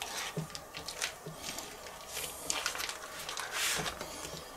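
A kitchen knife cutting through a sheet of pastry dough on a wooden cutting board, with scraping and the rustle of baking paper. There is a series of short scrapes and taps, and longer rustles about two seconds in and toward the end.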